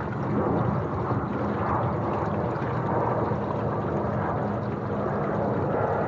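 Electric trolling motor rated at 55 lb thrust humming steadily while the twin aluminum canoe moves, with water rushing and lapping against the hulls.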